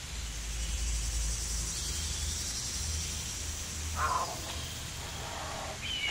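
Ambient intro sound design: a low steady drone under a high steady hiss, with a short falling swoosh about four seconds in and a high falling tone starting near the end.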